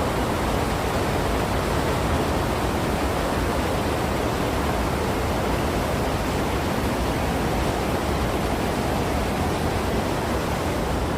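Mountain stream rushing over rocks: a steady, even wash of water noise.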